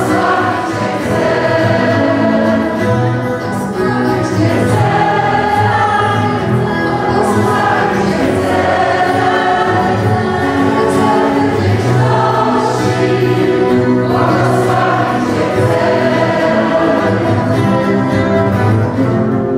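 A worship group and congregation singing a worship song together, a mix of voices like a choir, accompanied by acoustic guitar.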